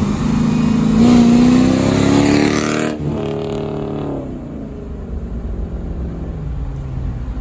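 Straight-piped 2004 Mercedes CLK500's V8 exhaust, open from the secondaries back. The engine pulls up steadily in pitch for about three seconds, then drops off abruptly and winds down to a lower, steady note.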